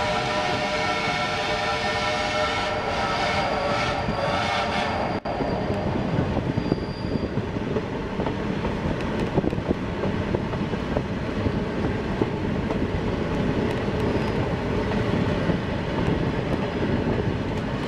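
Steam locomotive whistle blowing a long blast of several tones, which cuts off abruptly about five seconds in. After that comes the steady rumble and clatter of the open passenger cars rolling on the track, heard from aboard the train.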